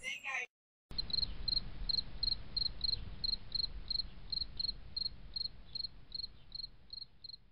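A cricket chirping steadily, about three short high chirps a second, over a faint low rumble.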